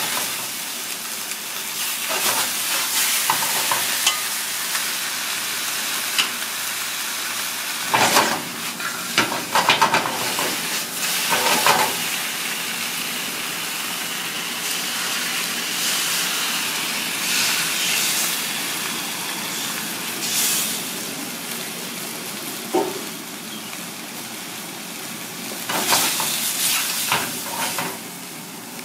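Giant tiger prawns sizzling in a small black wok over a gas burner, frying first in garlic and then in a chili sauce poured in midway. Several sharp clatters come about eight to twelve seconds in and again near the end.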